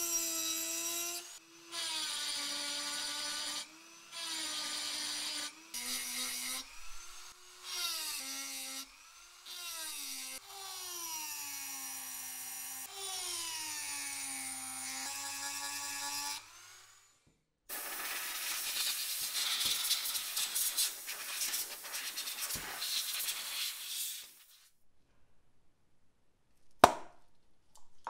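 Handheld rotary tool with a small ball-shaped grinding bit working a steel hatchet head into a pitted 'snake skin' texture: the motor whines in short runs of one to two seconds, its pitch sagging as the bit bears on the metal and rising again as it lifts. Later comes about seven seconds of rough scraping noise without the whine, and near the end a single sharp knock.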